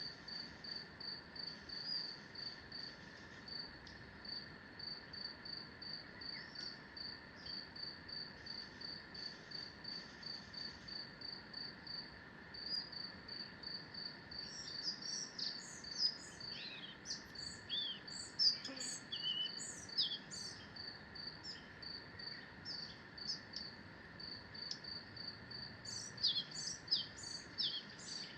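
Forest ambience: a high chirp repeats steadily about three times a second, over a faint even hum. Songbirds break in with quick, sweeping phrases in the middle and again near the end.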